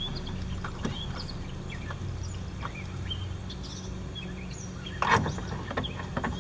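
Light clicks and rubbing of a hand turning plastic bolts on a car's taillight housing, with a louder clatter of handling about five seconds in. Faint bird chirps and a steady low hum sit underneath.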